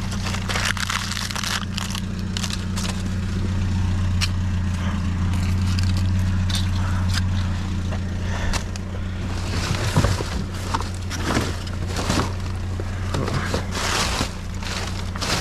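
Truck engine running, a steady low drone, with scattered clicks and rattles that come more often in the last few seconds.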